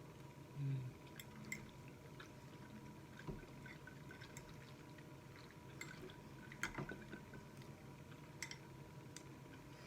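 Faint wet mouth sounds of eating spaghetti: scattered soft clicks and smacks while chewing, over a low steady hum.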